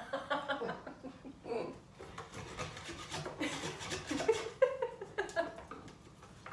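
A screwdriver scraping and prying at a bamboo cutting board in short, scratchy strokes, with soft laughter.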